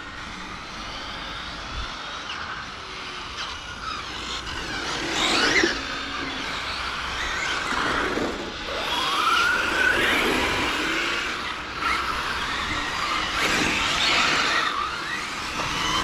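Radio-controlled cars running on a track, their motors whining up and down in pitch as they speed up and slow down, with the loudest passes about five seconds in and near the end.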